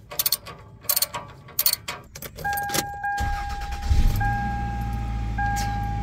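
Keys jingle a few times and a car's steady electronic warning chime sounds. Then the Toyota Camry's engine cranks, catches and settles into a quiet, steady idle through its repaired exhaust. The owner calls it "so quiet".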